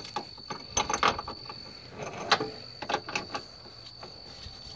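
Scattered small clicks and knocks of a body-mount bolt and polyurethane bushing being handled and shifted by hand in the steel frame mount, with a steady high-pitched tone behind.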